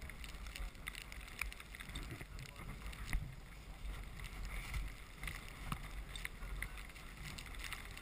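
Wind rumbling on a helmet camera's microphone, with scattered clicks and scrapes of skis and poles shifting in deep snow; the sharpest click comes about three seconds in.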